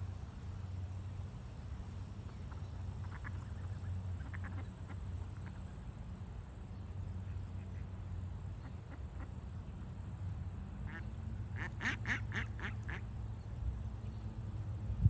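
Mallard ducks quacking: a few faint scattered quacks, then a quick run of about six louder quacks near the end, over a low steady rumble.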